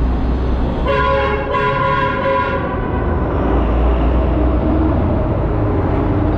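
A horn sounds two blasts, a short one then a longer one, with several tones at once, over a steady low rumble.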